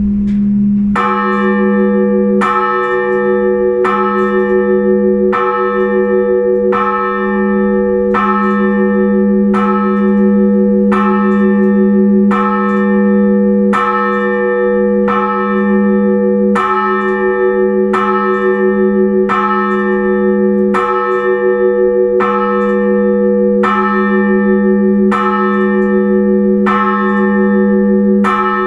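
Orthodox church bell ringing for the liturgy: a single bell struck evenly, about one stroke every second and a half, each stroke ringing on into the next over a steady deep hum. This even single-bell ringing is the blagovest that calls people to the service. The strokes begin about a second in.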